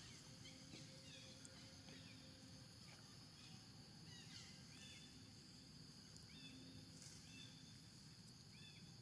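Near silence: faint outdoor ambience with a steady high insect drone and scattered faint chirps.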